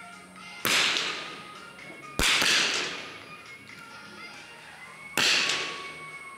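.22 smallbore target rifles firing three sighting shots during the changeover before the prone series. The shots come about a second and a half and then three seconds apart, each crack followed by a long echo in the indoor range hall.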